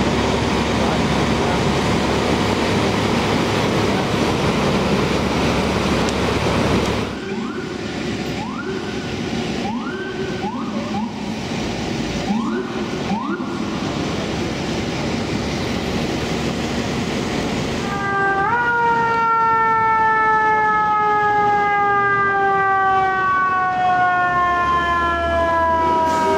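Fire-engine siren: first a dense rumble of engine and street noise, then several short rising siren whoops about a second apart, then a siren that rises once and winds slowly down in pitch over about eight seconds.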